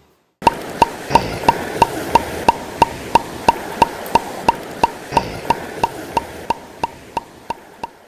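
Outro music: a sharp woodblock-like tick about three times a second over a steady hiss. It starts abruptly after a brief silence and fades out near the end.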